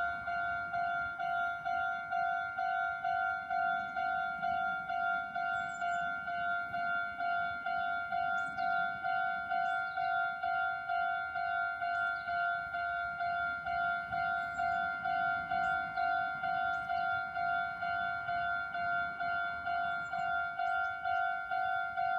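Railway level crossing's electronic warning bell ringing, one steady pitched ding repeated evenly about twice a second.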